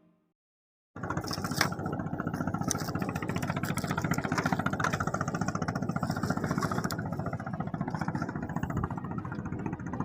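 An engine running steadily with a fast, even chug, starting about a second in after a moment of silence.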